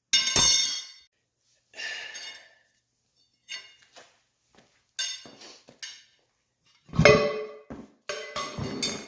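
Metal tire spoons clanking and clinking against the steel wheel rim as a knobby tire is worked off the wheel. There are about seven separate knocks, each with a short metallic ring, and the heaviest comes about seven seconds in.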